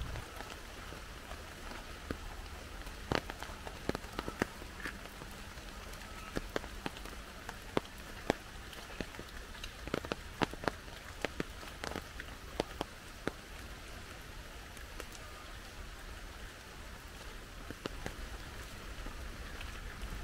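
Heavy rain falling steadily, with irregular sharp taps of single drops striking close by, most frequent in the middle stretch.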